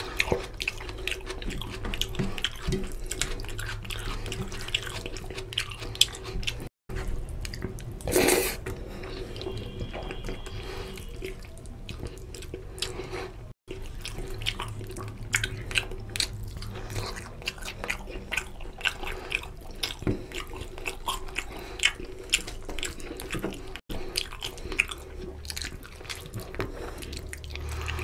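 Close-miked eating by hand: chewing and lip-smacking on mutton curry and basmati rice, with wet squishing of fingers mixing rice into oily gravy, as many short clicks throughout. The audio drops out briefly three times.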